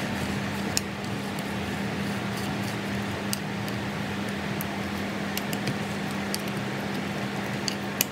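Light, irregular metal clicks and ticks of a T-handle Allen key turning cap screws into a kart starter's Bendix (starter reduction gear) housing, over a steady background hum.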